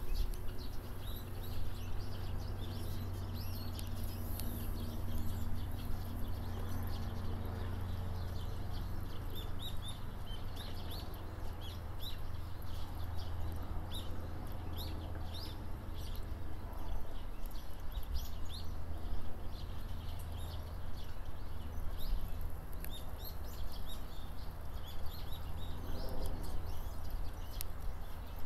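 Small birds chirping, with many short high calls scattered throughout, over a steady low hum.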